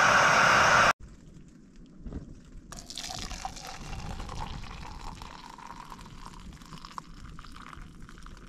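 Water poured from a metal pot into a blue plastic cup, splashing and trickling as the cup fills, starting about three seconds in. Before that, a loud steady hiss cuts off suddenly about a second in.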